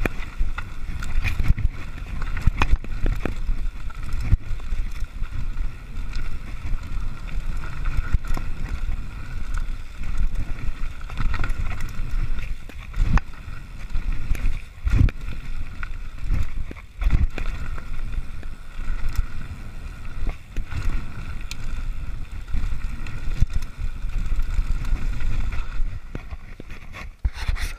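Mountain bike riding fast down a rough dirt trail: a continuous rush of wind on the microphone and tyre noise, broken by frequent knocks and rattles as the bike hits bumps and stones, with a few harder thumps in the middle.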